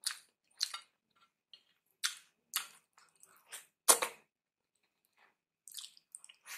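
Wet lip smacks and chewing of a person eating soft food by hand, sucking it off the fingers: about eight short separate smacks, the loudest a little before four seconds in.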